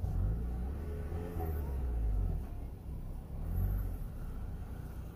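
Low rumble of a Honda Civic sedan creeping slowly at close range, engine and tyres, swelling three times and easing off near the end.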